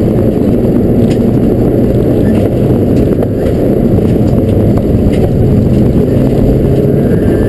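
Mitsubishi rally car at speed on gravel, heard from inside the stripped, roll-caged cabin: a loud, steady low engine and road drone, with scattered sharp ticks of gravel striking the car.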